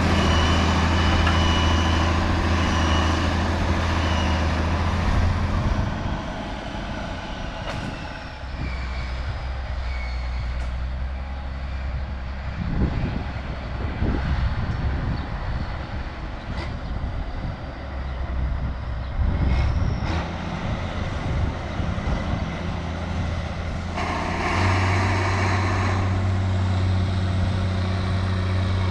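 Tractor engine running steadily. It drops back about six seconds in and revs up again a little before the end.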